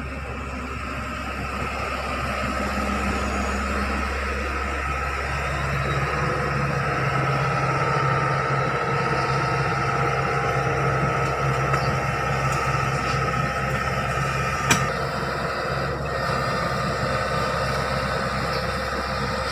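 Hitachi ZX110 hydraulic excavator running as it swings and travels on its tracks: a steady diesel engine drone with a high hydraulic whine above it, getting louder over the first several seconds. A single sharp click comes about fifteen seconds in.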